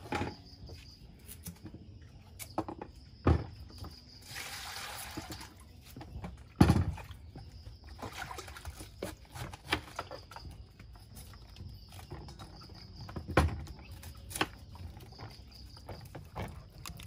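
Water poured from a plastic bowl into a steel bowl of fruit, a splashing rush lasting about a second and a half about four seconds in. Occasional sharp knocks and clatter of bowls and a knife on the table, and crickets chirping steadily throughout.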